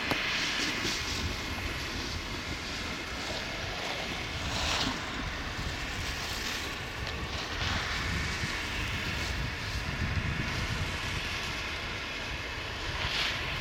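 Wind buffeting the camera microphone: a steady low rumble with a hiss that swells briefly several times.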